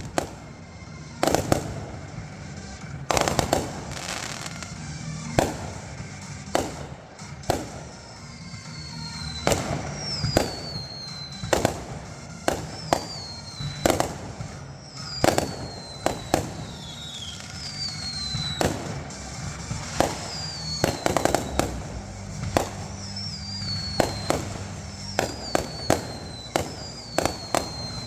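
Fireworks going off in quick succession: many sharp bangs at irregular intervals. From about nine seconds in, a string of short high whistles falls in pitch roughly once a second.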